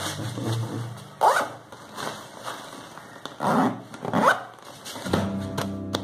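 The zipper of a Quechua 10-litre nylon daypack is pulled shut in three quick strokes, each rising in pitch: one about a second in and two close together near four seconds.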